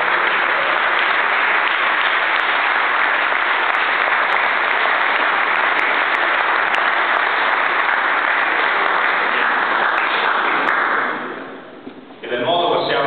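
Audience applauding steadily, then dying away about eleven seconds in.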